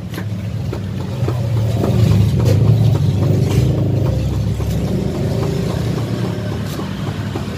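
Low rumble of road traffic passing close by, swelling about a second in and easing off after the middle, with a few light taps of a knife blade on a plastic cutting board.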